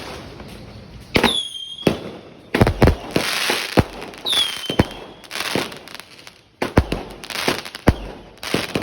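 A 50-shot, 0.8-inch firework cake firing: after about a second of low hiss, a quick irregular string of sharp bangs with a few whistles that drop in pitch.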